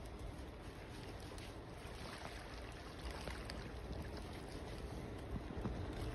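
Steady outdoor noise of wind on the microphone and river water, with a few faint clicks.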